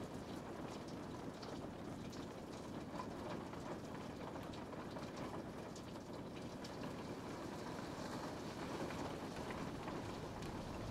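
Steady rain falling, a deep even wash with scattered light drop ticks on top; the sound grows slightly louder near the end.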